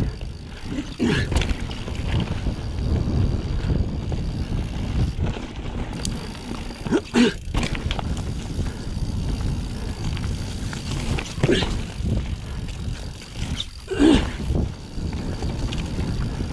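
Mountain bike being ridden along a rough trail: a steady rumble of tyres and wind, with three sharp knocks spread through. The freshly serviced headset gives no rattle.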